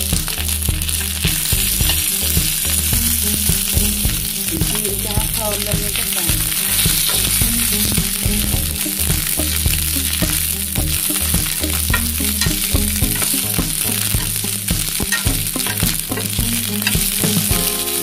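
Lạp xưởng sausages frying in hot oil in a frying pan: a steady sizzle with frequent small pops and crackles, as wooden chopsticks turn the sausages.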